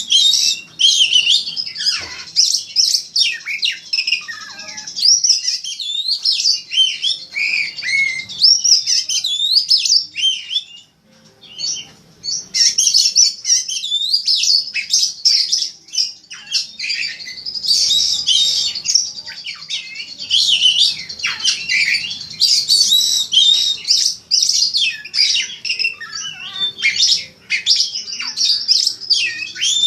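Oriental magpie-robin (kacer) singing a fast, continuous, varied song of sweet whistles and scratchy chattering notes, broken by a short pause about eleven seconds in.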